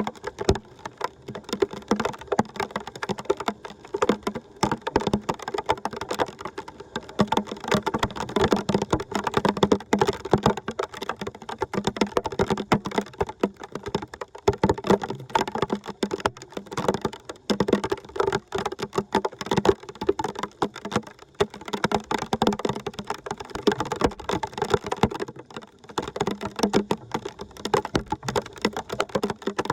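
Water splashing and gurgling in a rapid, irregular patter of small splashes.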